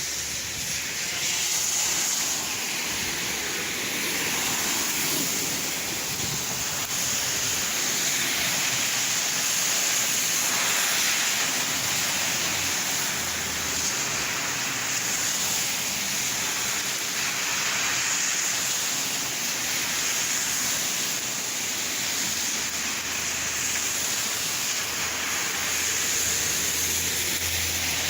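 Steady heavy rain falling and splashing, a continuous hiss with gentle swells in strength.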